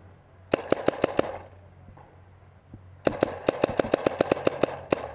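Paintball marker firing in bursts of sharp pops: about five quick shots about half a second in, then a rapid string of about fifteen shots, roughly eight a second, starting about three seconds in.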